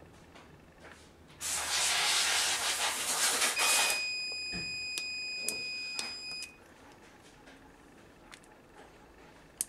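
A rushing hiss for about two and a half seconds, then a multimeter's continuity buzzer giving one steady high beep for about three seconds, with a few light clicks, as the probes are held across the angle grinder's switch terminals. The beep shows the switch is conducting. The same beep starts again right at the end.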